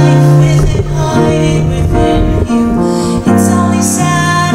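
A woman singing in held notes while accompanying herself on a grand piano.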